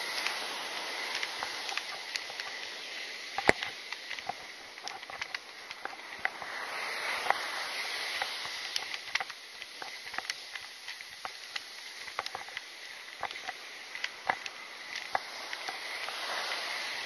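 Ocean surf washing up the beach, swelling twice, with scattered small clicks and footsteps on sand, the sharpest click a few seconds in.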